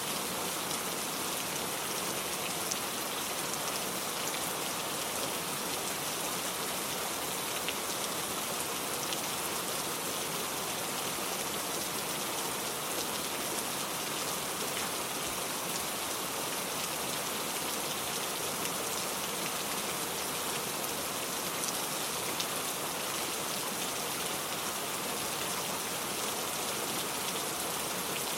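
Steady rain falling, a constant even hiss with scattered drops ticking on surfaces.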